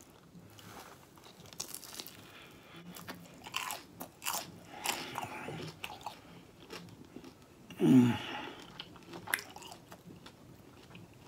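Close-miked biting and chewing of a deep-fried corned beef egg roll, its crisp wrapper crackling and crunching between the teeth. A brief falling hum of the voice about eight seconds in.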